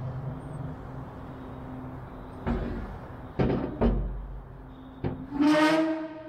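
Tools and parts knocked and set down on a wooden workpiece: four sharp knocks, then near the end a loud scrape with a ringing tone that lingers and fades.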